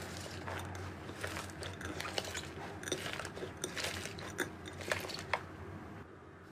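Slime being squished and pressed by hand, giving a dense run of small crackling and popping clicks that thin out and go quieter near the end.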